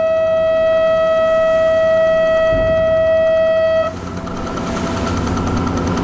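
A passenger ferry's horn sounding one long steady blast that cuts off about four seconds in, leaving the lower hum of the ship's engine.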